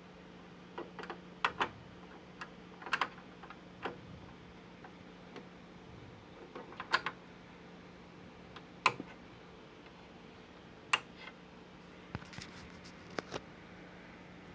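Irregular light clicks and taps of hands handling sewing machine parts, a dozen or so spread out, the sharpest about 9 and 11 seconds in, over a faint steady hum.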